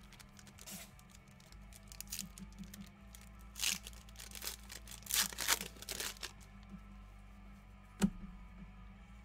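Trading card pack wrappers being torn open and crinkled: several short rips, the loudest run about five to six seconds in, then a single sharp click near the end.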